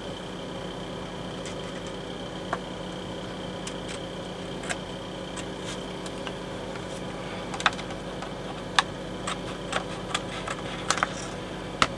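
Steady room hum with a few sharp, light clicks and taps of small objects being handled, more of them in the second half.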